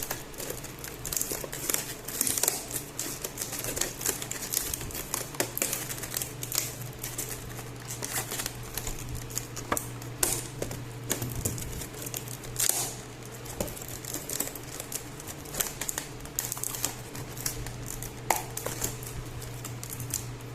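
Sealed cardboard packaging being handled and picked at to get it open: irregular crinkling and rapid clicking and crackling, over a steady low hum.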